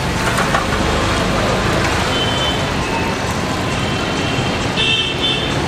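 Hot oil sizzling steadily in a large kadhai as samosas deep-fry, mixed with constant street traffic noise.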